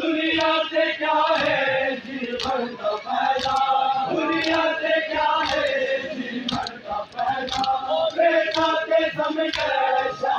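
A crowd of men chanting a Muharram mourning lament (nauha) together, with sharp slaps of hands on chests (matam) about once a second in time with the chant.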